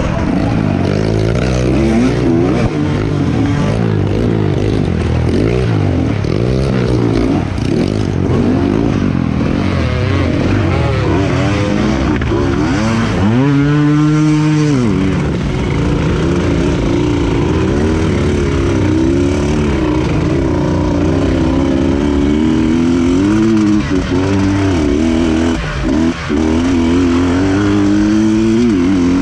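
Dirt bike engine heard from onboard, its revs rising and falling constantly with the throttle over rough, muddy ground. Midway it climbs to high revs and falls away again over about two seconds while the bike ploughs through a stretch of muddy water.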